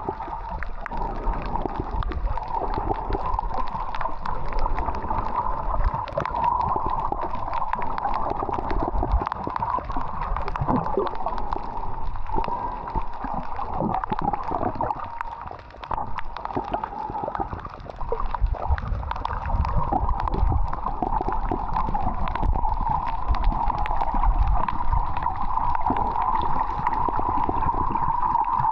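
Water sloshing and gurgling close to the microphone, with many small splashes and knocks.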